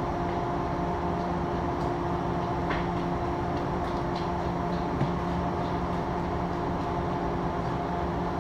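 Steady hum of a stationary train's onboard equipment while it stands at a station, with a few faint clicks.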